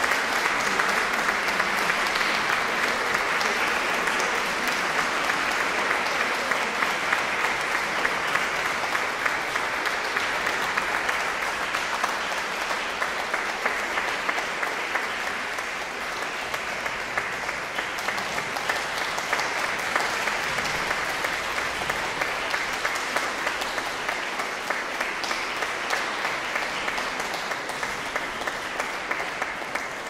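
Audience applauding in a cathedral, a dense, steady clapping that eases slightly about halfway and then carries on.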